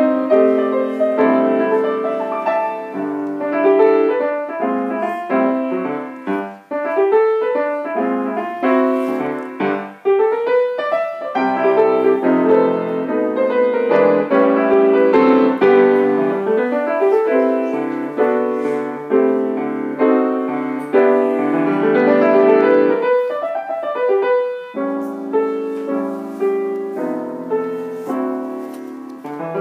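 Grand piano played solo: a lively piece of quick, many-note passages with several rising runs.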